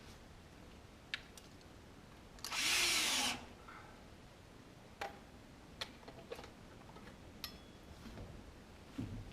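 Power drill running in one burst of about a second, then several light, sharp clicks and knocks.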